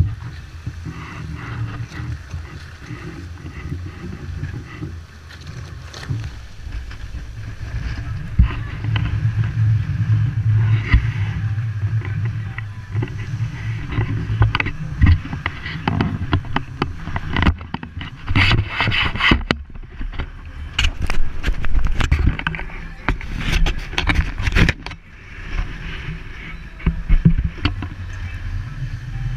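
Strong wind rumbling on the microphone and water rushing along the hull of a heeled sailboat driving through a steep chop in 18–22 knot winds. From about halfway through come repeated bursts of splashing spray.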